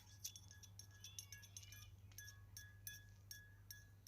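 A spoon stirring honey into warm olive oil in a small pan, clinking faintly against the pan two or three times a second, over a low steady hum.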